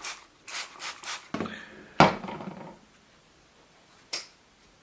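Hand-handling noises: a few quick rubbing strokes, then one sharp knock about two seconds in, as of an object set down on a hard surface, and a single click near the end.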